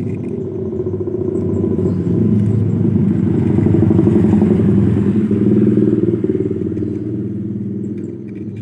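Suzuki Carry Futura fuel-injected engine running, swelling louder for a few seconds in the middle and easing back down, with a rattling vibration that the owner traces to the oil filter area and puts down to poor maintenance.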